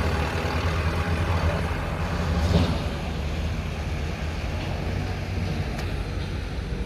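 Truck engine running, a low steady rumble that swells about two and a half seconds in and then eases off.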